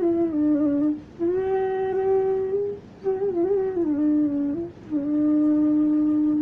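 Transverse flute playing a slow melody in raga Khamaj: short phrases of stepping and gliding notes, broken by brief pauses for breath about one, three and four-and-a-half seconds in, then a long held low note.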